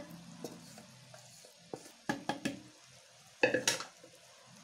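A steel cooking vessel knocking and scraping against a mixer-grinder jar as cooked raw mango pulp is tipped in: a few separate knocks, with the loudest cluster about three and a half seconds in.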